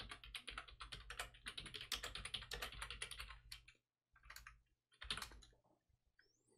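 Faint typing on a computer keyboard: a quick run of keystrokes lasting over three seconds, then two short bursts of keys.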